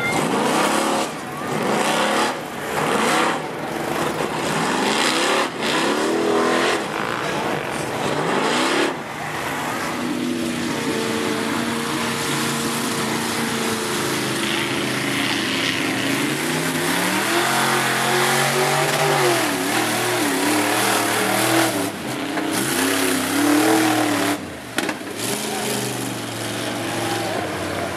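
Lifted mud trucks' engines revving hard as their big tyres churn through the mud pit, with mud and water spraying. In the first part the engine is blipped up again and again in short stabs; later one engine holds a steady pitch, then revs up and down repeatedly.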